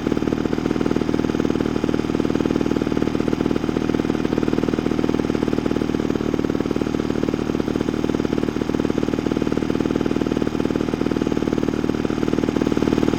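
Piston-engine lawnmower running steadily at a constant speed, a continuous rapid putter.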